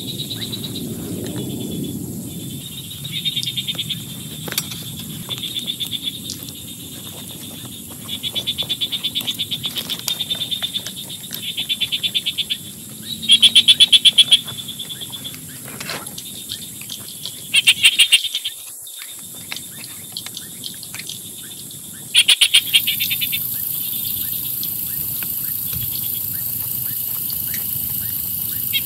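Frogs calling in short, rapidly pulsed trills, each about a second long, every few seconds, over the steady hiss of heavy rain. The rain hiss grows louder about three-quarters of the way through.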